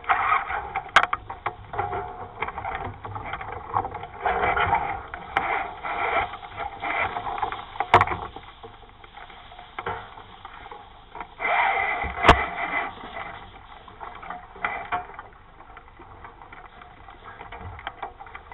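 420 sailing dinghy under way in a fresh breeze: water and wind rushing past in uneven surges, with three sharp knocks from the boat.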